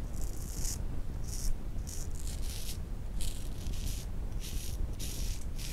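Yunost double-edge safety razor scraping through several days' stubble under shaving lather, in a quick series of short strokes, about ten of them.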